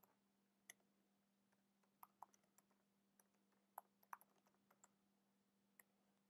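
Faint computer-keyboard typing: a dozen or so light, irregularly spaced keystroke clicks over a faint steady hum.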